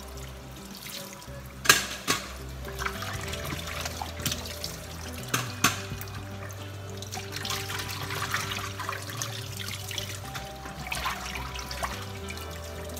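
Kitchen tap running into a stainless steel sink and a metal bowl while raw salmon heads are rinsed and rubbed by hand, with splashing and a few sharp knocks near 2 and 5.5 seconds in.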